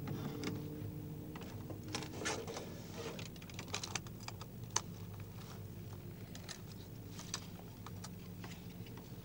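Quiet room tone with a low steady hum, broken by scattered small irregular clicks and soft rustles of someone moving and handling something.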